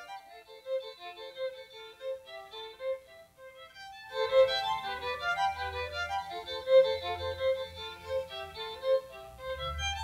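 String quartet music: violins play quick, repeated short notes in a middle register, and about four seconds in lower strings join and the sound grows fuller and louder. The notes were sonified from beaver tooth marks left on a piece of wood.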